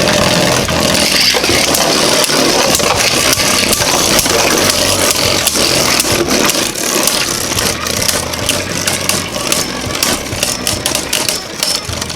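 Two Beyblade Burst spinning tops with 3D-printed metal upgrades spinning and grinding against each other in a plastic stadium: a steady whirring hiss with rapid clacks of collisions, which grow more frequent after about six seconds.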